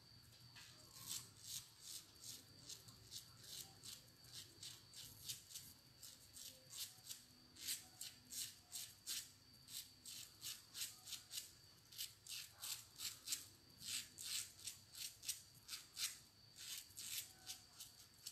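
Safety razor with a very sharp Japanese-steel Euromax blade scraping through lathered stubble on the neck and chin in short, crisp strokes, about two to three a second.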